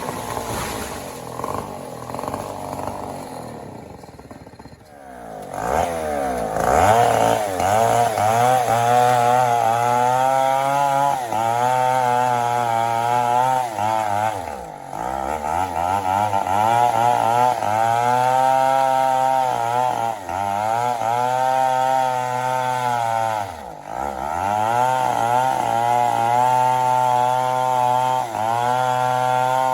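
Chainsaw cutting into mahogany. The engine eases off about four seconds in, then revs back up to full throttle and runs hard, its pitch sagging and recovering under load. Twice in the second half it dips briefly and picks up again.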